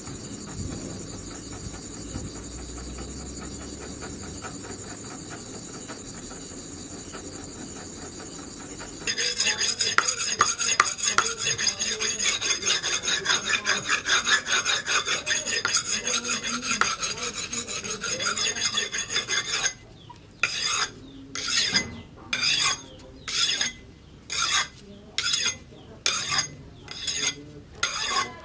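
Steel cleaver blade, forged from a leaf spring, being sharpened on a whetstone. It starts about nine seconds in with rapid back-and-forth scraping strokes, and after about ten seconds slows to separate strokes about one a second. Before the sharpening starts there is a steady high chirring of insects.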